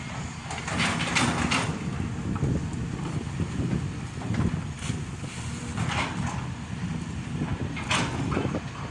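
Caterpillar hydraulic excavator's diesel engine running while digging, a steady low drone, with four brief hissing bursts over it.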